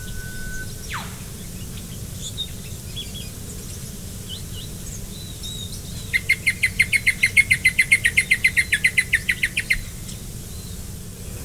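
Rainforest birds calling: a held whistle that ends in a sharp falling whip-like sweep about a second in, scattered short high calls, then a loud rapid trill of about ten notes a second lasting nearly four seconds.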